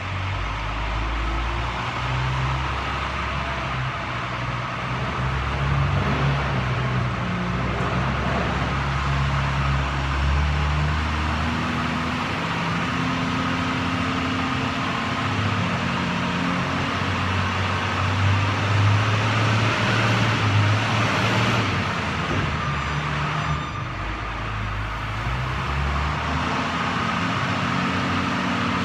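Wheel loader's diesel engine working, its pitch rising and falling as it drives into a pile of road salt and lifts a loaded bucket. It is loudest about two-thirds of the way in.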